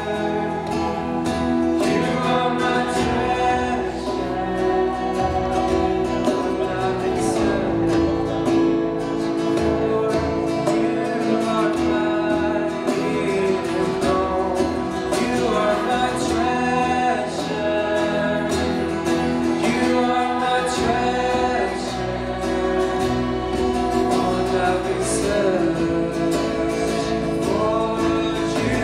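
Live acoustic guitar strumming with a group of voices singing together, played continuously.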